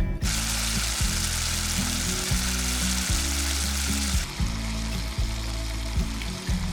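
Food sizzling over the campfire, a loud even hiss that cuts off sharply about four seconds in, over background music with a plucked bass line.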